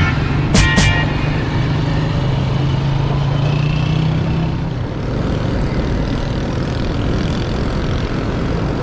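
Vehicle running, with steady road and engine noise. A steady low hum stops about four and a half seconds in, and a couple of sharp clicks come within the first second.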